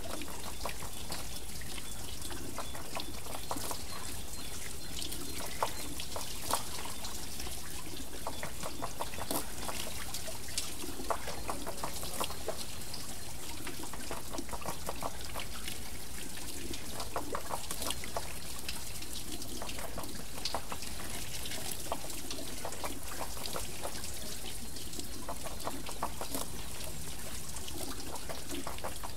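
Water trickling and splashing off a turning water wheel, a steady patter of many small splashes.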